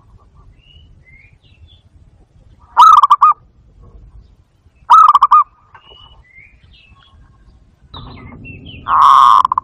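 Zebra dove (barred dove, bato-bato) giving two short, rapid stuttering coos about three and five seconds in, then a louder, longer cooing call near the end. Faint high chirps of other birds sound between the coos.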